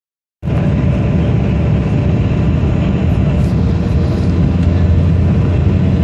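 Steady drone of an aircraft's engines heard from inside the cabin in flight: a deep rumble with a few faint steady tones above it, cutting in abruptly a moment in.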